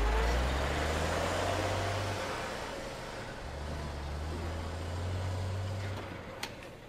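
Plastic wheels of a large Bruder Mack Granite toy truck rolling on a wooden floor as it is pushed by hand, a low rumble in two long pushes. A single sharp knock near the end.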